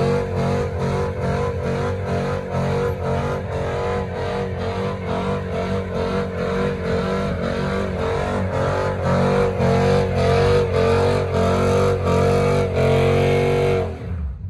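Dodge Charger doing a burnout, its engine held at high revs with a steady pulsing about three times a second while the rear tyres spin in thick smoke. The revs drop off sharply near the end.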